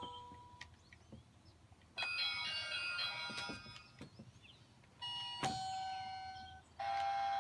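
Electronic doorbell sounds from a toy doorbell house, its buttons pressed one after another: a chime melody about two seconds in, a second chime at about five seconds, and a steady buzzing tone near the end. Small clicks from the plastic buttons fall between them.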